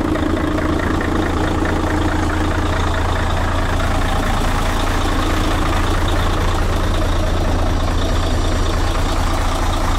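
Mercedes-Benz Actros 1843's V6 diesel engine idling steadily, left running to warm up.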